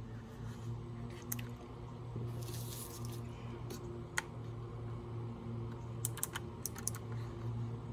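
Scattered sharp clicks and taps, with a quick run of several near the end, over a steady low hum.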